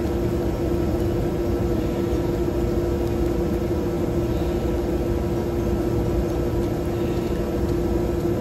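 Steady machine hum: a constant low tone over an even rumble, holding level with no change.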